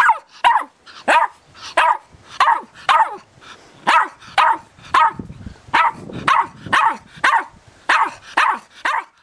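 Eight-week-old Irish Terrier puppy barking over and over, short high-pitched barks at about two a second.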